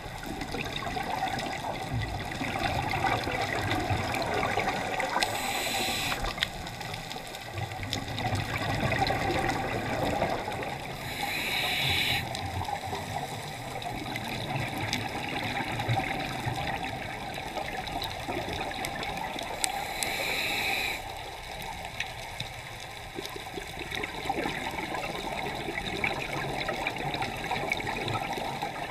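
Scuba diver breathing through a regulator underwater: a continuous bubbling rumble of exhaled air, broken three times by a short hiss of inhalation.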